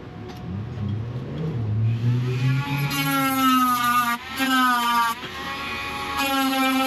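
Electric angle grinder spinning up and grinding down a weld on the excavator hood: a rising whine that settles into a steady high whine with a hiss of grinding, dipping briefly twice, about four and five seconds in.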